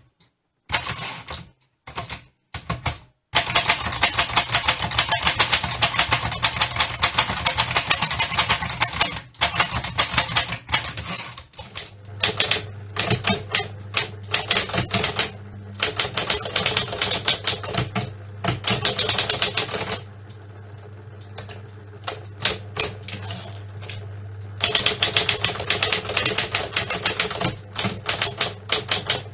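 Manual typewriter keys typed in fast, dense runs of clacks, broken by a few abrupt cuts near the start. Partway through, a steady low hum joins the sparser keystrokes, like the motor of an electric typewriter, before rapid typing picks up again near the end.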